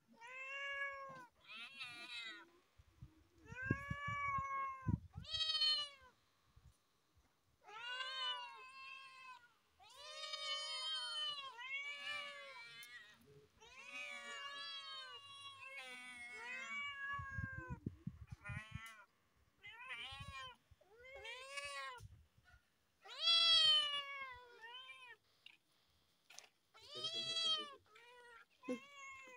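Several kittens meowing over and over, each call rising and falling in pitch, some calls overlapping one another. A few low thumps come in twice, a few seconds in and again about midway.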